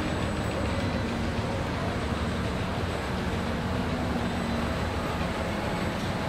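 Steady running noise of an overhead electric monorail conveyor and lift carrying a car body in its hanger through the factory, with a faint low hum coming and going.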